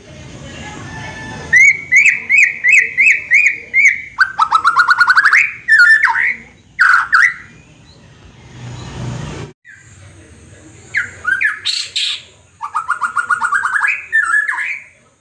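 White-rumped shama (murai batu) singing loud, varied phrases: runs of evenly repeated notes at about three a second, fast trills and sharp falling calls, with a pause in the middle. The repeated-note runs are presented as its mimicry of a hen's cackle after laying an egg.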